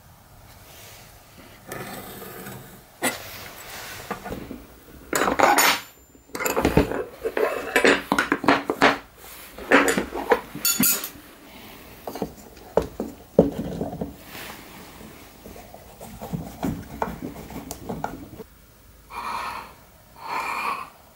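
Clinking and clattering of metal hand tools and parts handled on a wooden workbench, mixed with knocks of wood. It comes in irregular bursts, densest in the middle. Near the end there are two short scrapes as a wooden board is pushed across the plywood jig table.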